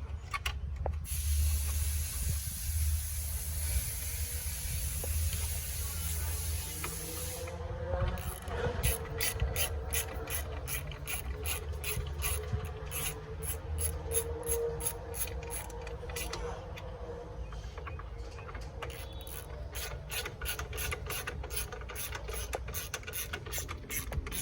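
A steady hiss and low hum, then from about seven seconds in an even mechanical clicking, about two clicks a second, like a ratcheting mechanism, over a faint steady tone.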